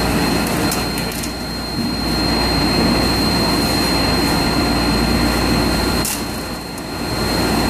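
CNC machining center running a cutting cycle on a 3/4 NPT port, with flood coolant spraying, a steady high whine and a dense wash of machine and coolant noise. The noise dips briefly about a second and a half in and again near the end, with a few sharp clicks.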